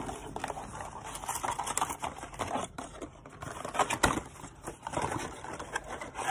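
Irregular clicks, taps and rustling of a box and its packaging being handled as a GoPro suction cup mount is unpacked.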